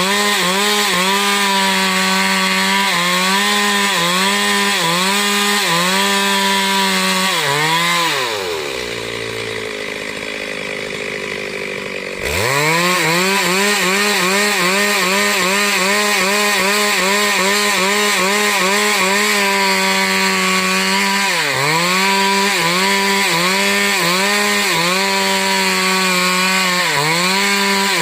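Stihl MS 382 two-stroke chainsaw running at high revs, cutting wood, its pitch dipping slightly and regularly under the load. About 8 seconds in the throttle is let off and the engine winds down to a low idle, then about 4 seconds later it revs sharply back up to full speed and carries on cutting, with a couple of deeper brief dips near the end.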